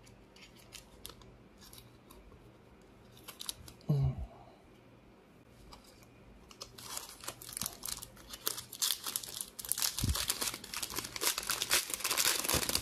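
Plastic wrapper of a Bowman baseball card pack crinkling as it is handled and torn open, a dense crackle from about seven seconds in. Before that come a few light taps and a soft thump as cards are set down.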